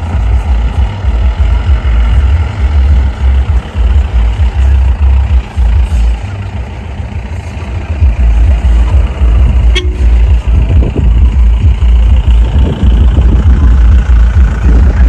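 Off-road jeep driving over a rough, rocky track: the engine runs under a heavy, uneven low rumble. A single sharp click comes about ten seconds in.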